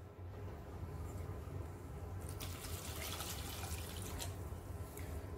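Water poured from a steel vessel into a pot of cut taro pieces, a steady splashing pour that grows louder for about a second a little over two seconds in.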